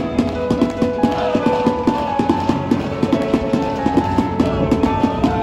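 Music with a steady drum beat and held notes.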